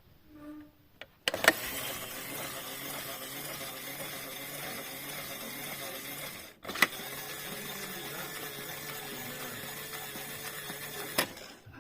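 Toy washing machine's small electric motor running steadily with a hum. It starts with a click about a second in, cuts out briefly about halfway, starts again with a click, and stops with a click near the end.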